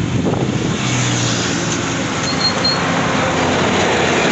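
Steady rush of wind and road noise from a Honda CB Shine motorcycle travelling along a highway, with a low engine hum underneath. A lorry passes close alongside near the end.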